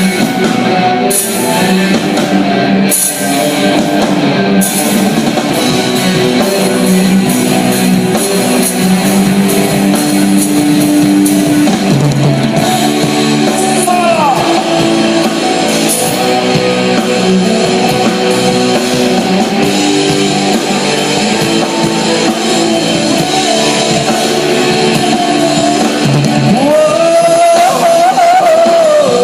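Instrumental stretch of a rock-style band song, with guitar and drum kit playing.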